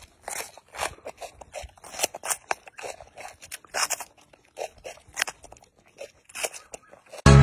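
A macaque biting and chewing a raw yellow bell pepper: a run of irregular crisp crunches, two or three a second. Loud electronic dance music cuts in at the very end.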